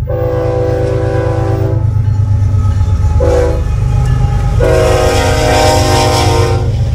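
Freight diesel locomotive's multi-note air horn sounding a long blast, a short blast and another long blast, the closing part of the long-long-short-long grade-crossing warning. Under it is the steady low rumble of the approaching train.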